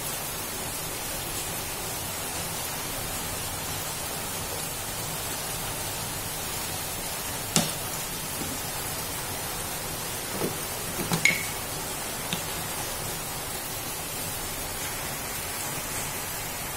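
Milkfish pieces frying in hot oil in a pan, a steady sizzle. About halfway through come a few sharp clinks and knocks against the pan, one with a short ring.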